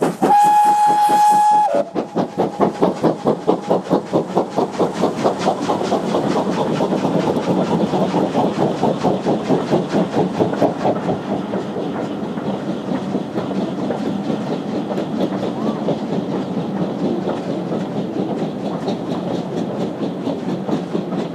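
Steam locomotive whistle sounding one long blast. The tank engine then passes with rapid, sharp exhaust beats under heavy smoke, and its coaches follow with a steady rhythmic clatter of wheels on the track.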